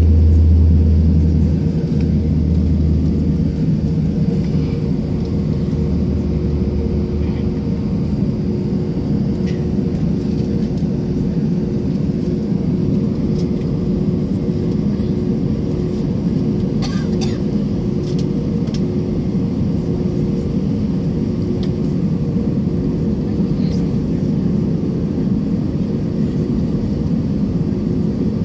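Jet airliner's engines and cabin at taxi, heard from inside the cabin: a steady rumble with a constant hum. A deeper drone, loudest at the start, fades away in the first several seconds, and a couple of faint clicks come about midway.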